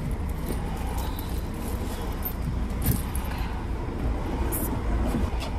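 Inside a moving car at low speed: the steady low rumble of engine and tyres, with a few short clicks.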